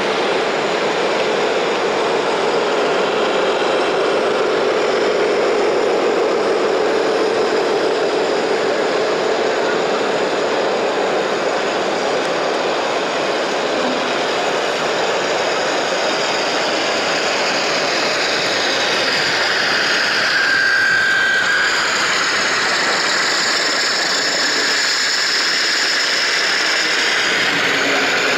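Radio-controlled scale model Liebherr LTM 1090 mobile crane running, a steady mechanical drive noise with a hum in the first part. The pitch shifts about two-thirds of the way through as the crane works.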